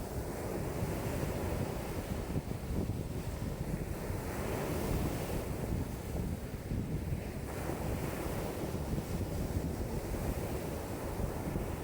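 Lake waves breaking and washing in strong wind, in continuous surges, with wind rumbling on the microphone.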